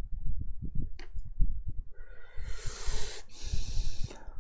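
A man breathing close to the microphone: two long, noisy breaths, the first about two seconds in and the second right after it, over a run of low thumps and a single click about a second in.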